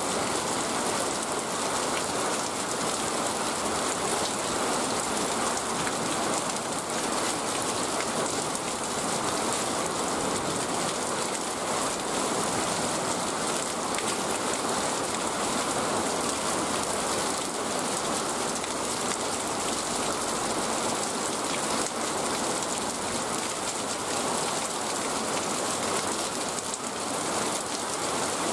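Steady rain falling on wet ground and puddles, an even hiss that holds throughout.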